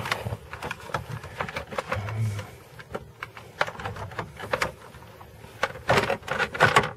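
Irregular clicks, taps and knocks of hands working on a car's interior trim and wiring connectors during disassembly, busiest about six seconds in.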